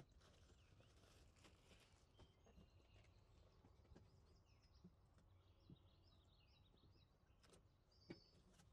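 Near silence, with faint taps and rustles as small plastic parts are handled and set down on a table, and a slightly louder knock about eight seconds in.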